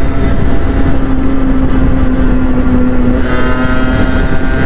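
50cc two-stroke motorcycle engine running at cruising speed in fifth gear, heard from on board under heavy wind rush on the microphone. The engine note is steady, and a higher engine note comes in about three seconds in.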